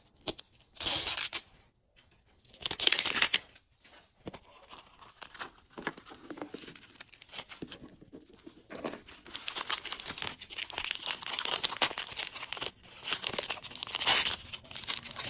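Wrapper being ripped off a toy capsule ball, two loud tears about a second and three seconds in. Later, small plastic packets crinkle in the hands and one is torn open with a loud rip near the end.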